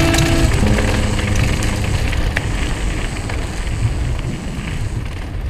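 Mountain bike speeding down a dirt and gravel trail, heard through an action camera: wind rushing over the microphone with the tyres crunching and rumbling on the ground. A few notes of music carry over at the start, and the whole sound slowly fades down towards the end.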